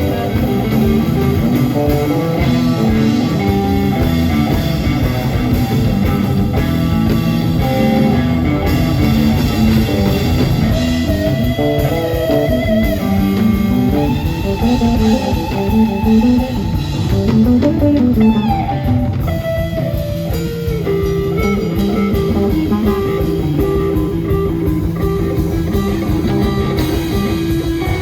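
Blues-rock band playing live: an electric guitar lead with bent notes over bass and drums.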